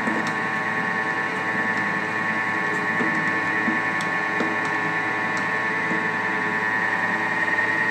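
Thermomix food processor motor running steadily at speed 4, mixing a crumbly almond-sesame flour dough. It makes an even, high machine whine with a few faint clicks from the spatula turned in the lid opening.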